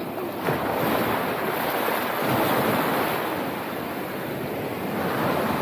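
Sea surf breaking and washing up a sandy beach, swelling about half a second in and easing a little after three seconds, with wind on the microphone.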